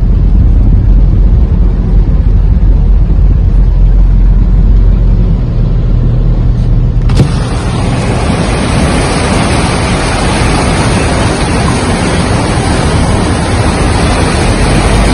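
Low rumble of a vehicle driving through a flooded road, with wind buffeting the microphone. About seven seconds in it cuts abruptly to a steady hiss of rain and moving floodwater over a lower rumble.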